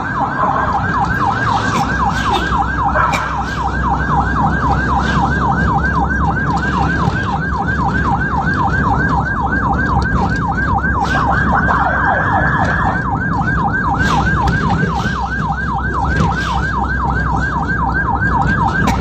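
Ambulance siren sounding a rapid yelp, its pitch sweeping up and down several times a second. About twelve seconds in it briefly holds a high tone before the yelp resumes. Vehicle engine and road rumble run underneath.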